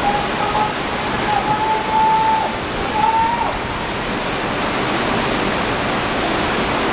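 Tsunami floodwater rushing and churning through a street, a steady loud roar of water. A thin high tone is held three times for under a second each in the first half.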